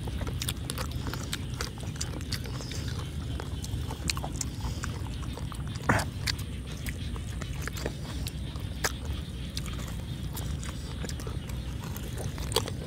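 Close-miked chewing, lip-smacking and tearing of boiled pig cheek eaten by hand: many short irregular clicks over a steady low rumble, with one brief louder noise about six seconds in.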